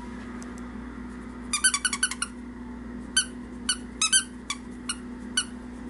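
Plush squeaky toy squeezed by hand, its squeaker giving short high squeaks: a quick run of about six about one and a half seconds in, then single and paired squeaks every half second or so.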